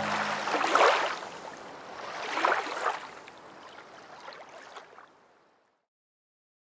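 Sea waves washing onto a beach, swelling twice about a second and a half apart and fading away. The sound cuts to silence about five seconds in.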